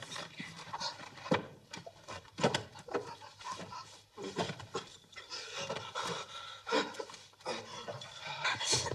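A young man breathing heavily and unevenly, with moans, in the pain of heroin withdrawal.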